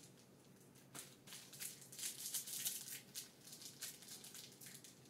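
Faint, irregular crinkling and clicking of foil-wrapped trading card packs being handled and picked from the box.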